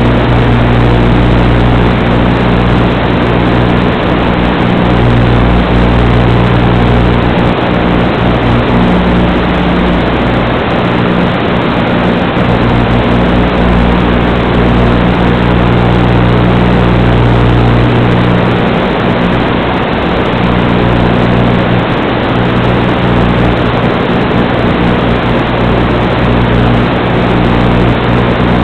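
Steady static hiss with a low, unchanging electrical buzz: the empty audio channel of an analog FPV video link, recorded by the goggles' DVR, rather than any motor sound.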